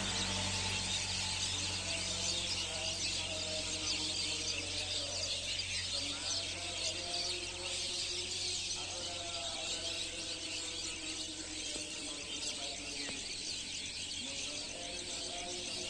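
Chorus of many small birds chattering and calling together from a tree, a dense, continuous twittering.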